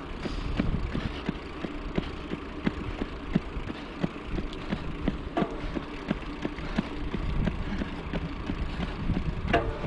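Running shoes striking asphalt in a steady rhythm of footfalls, over a low rumble of wind on the microphone. A brief, higher-pitched sound comes just before the end.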